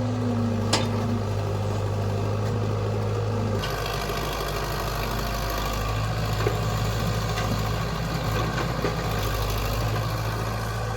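Heavy diesel machine engine running steadily at a low, even note, which shifts slightly about three and a half seconds in.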